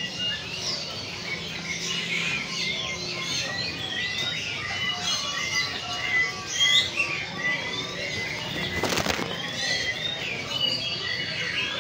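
Many small birds chirping and twittering all through, and about nine seconds in a short burst of wing flapping from a domestic pigeon being held in the hand.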